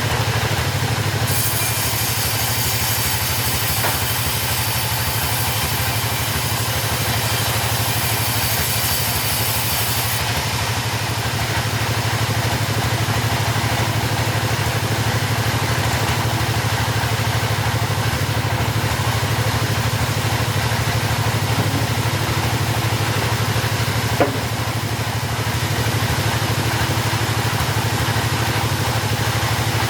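Chainsaw engine idling steadily. A high hiss rides over it for roughly the first ten seconds, and there is a single small knock near the end.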